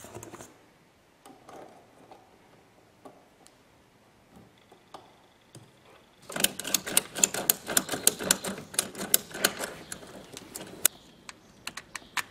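Plastic and metal hose fittings clicking and rattling as a spray hose is handled and fastened onto a sprayer's outlet coupling: a few single clicks, then a dense, irregular run of sharp clicks about halfway through that thins out near the end.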